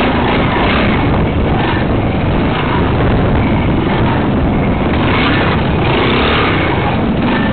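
Trials motorcycle engine running at low speed over rough ground, its revs rising and falling, heard loud and noisy through a helmet camera's microphone.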